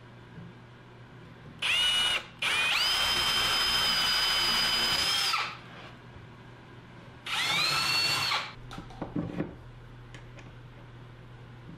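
Cordless drill boring holes through 3/4-inch plywood in three runs: a short one, a longer one of about three seconds, then one of about a second. Each spins up to a steady whine. A few light clicks follow as a flange nut is fitted onto a bolt.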